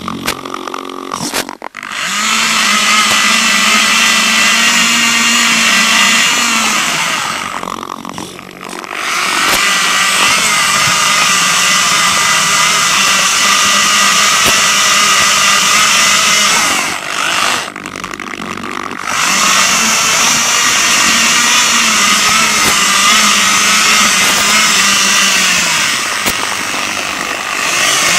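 Electric drive motors and gearboxes of a radio-controlled FPV rover running, a loud, steady buzzing whine whose pitch shifts a little with speed. It eases off briefly twice, about eight and eighteen seconds in.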